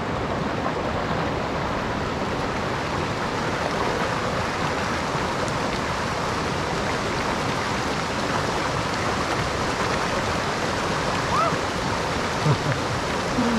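River water rushing steadily, with a few brief voice sounds near the end.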